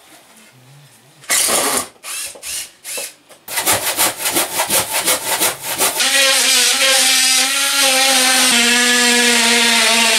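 Hammer and hand-tool knocks and scrapes on old timber joists, then a cordless power tool running steadily as it cuts into the plaster-and-lath ceiling. Its pitch drops slightly partway through.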